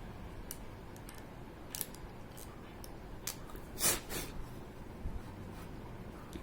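Small clicks and brief scrapes of laptop parts and connectors being handled, a few sharp ticks spread through, with the loudest scraping rustle about four seconds in.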